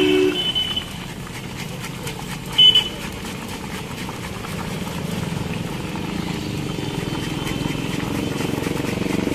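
Raw banana scraping over a handheld slicer in quick strokes, the slices dropping into a wok of hot oil that sizzles. A motorcycle engine's hum grows louder through the second half.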